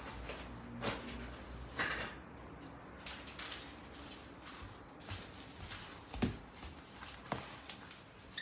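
Scattered handling noises of tidying up: papers and magazines rustling, light knocks and footsteps on a wooden floor, with the sharpest knock about six seconds in.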